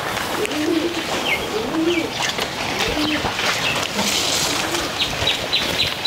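Pigeons cooing, short low arched calls repeated about once a second, with small birds chirping higher up and a quick run of twittering notes near the end.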